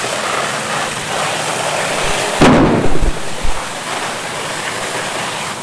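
Steady rushing hiss of a fire hose stream pouring water onto a burning building. About two and a half seconds in comes a burst of heavy low thumps lasting about a second.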